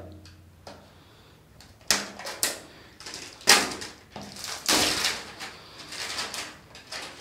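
Clear plastic shrink-wrap crackling and tearing as it is peeled off a cardboard phone box by hand. It comes in several sharp crinkly bursts from about two seconds in, then turns to steady rustling.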